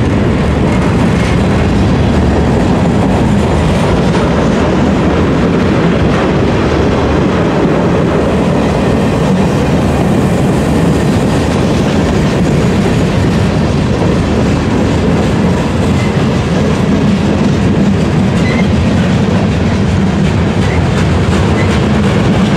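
Freight cars of a CSX mixed manifest train rolling past close by, with a loud, steady rumble and clatter of steel wheels on the rails.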